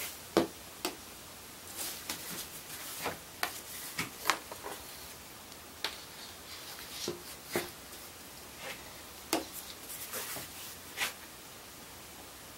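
Handling noise from the cut-out piece of surfboard deck skin being lifted and laid back onto the epoxy-soaked repair area: a dozen or so irregular light taps and knocks with soft rubbing in between.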